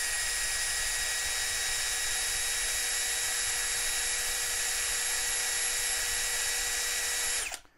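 Ingco 76 Nm 20V cordless drill running free in second gear, a steady high whine at about 1,925 rpm during a top-speed test, stopping near the end.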